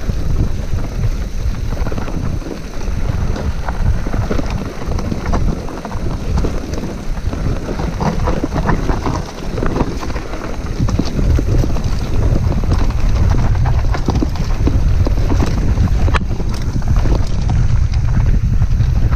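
Wind noise on an action camera's microphone while descending a rough dirt trail on a Polygon Siskiu full-suspension mountain bike, with the clatter and rattle of the bike and its tyres over the bumps, busiest about halfway through.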